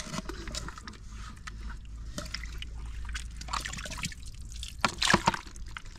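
Muddy water in a dug-out hole sloshing and trickling as hands work in it, with small wet splashes and drips throughout and a few sharper splashes about five seconds in.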